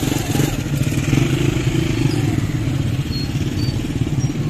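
A motorcycle engine running steadily, a loud low drone with a rapid even pulse.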